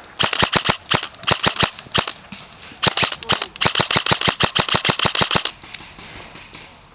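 Airsoft electric gun firing several rapid bursts of sharp clicking shots, with short pauses between bursts, then stopping about five and a half seconds in.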